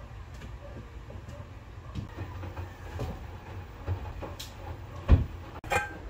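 Wooden wardrobe being handled as clothes are put away on its shelves: scattered soft knocks and rustles over a low steady hum, then two sharp wooden knocks in the last second, the first the loudest.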